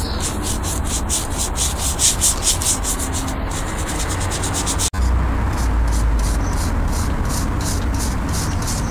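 Sandpaper rubbed by hand on solid oak trim in quick back-and-forth strokes, about five a second, with a brief break about halfway.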